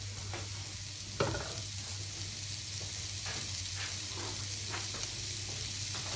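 Diced onions sizzling in hot fat in a frying pan as they start to sweat: a steady hiss with a few faint ticks, and a sharper knock about a second in.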